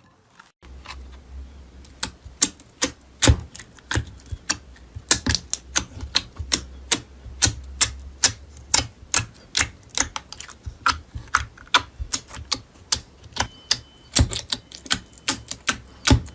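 A fast run of sharp, crisp clicks, about three to four a second, with a low hum underneath for the first half.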